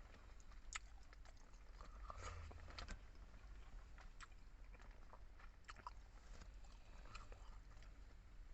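Faint eating sounds from a person chewing a meal of pork sinigang: irregular small smacks and clicks of the mouth.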